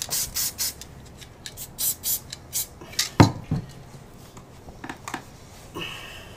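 Aerosol spray-paint can sprayed against a wall in a string of short hissing bursts, with one sharp knock about three seconds in.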